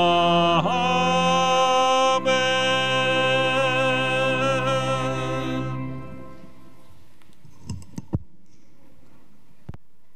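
Organ and singing voices holding the final chords of a hymn, with a change of chord just under a second in, likely a sung Amen. The music fades out about six seconds in, leaving the room's reverberant hush with a few faint knocks near the end.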